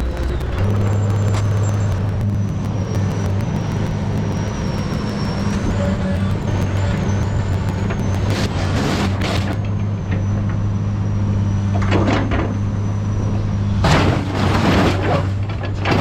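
Komatsu PC220 excavator's diesel engine running with a steady low drone, broken by several loud bursts of hissing around the middle and near the end.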